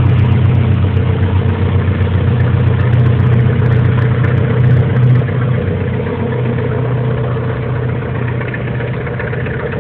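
SM42 diesel shunting locomotive's eight-cylinder diesel engine working under load as it hauls wagons away: a steady low drone that grows fainter from about five seconds in as the locomotive moves off.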